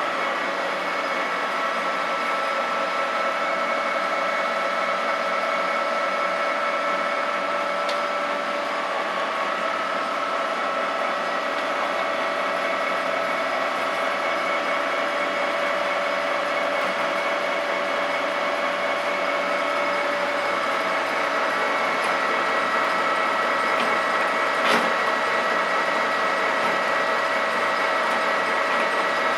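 TOS lathe running under power: a steady gear whine of several held tones over mechanical running noise, with one sharp click about three-quarters of the way through.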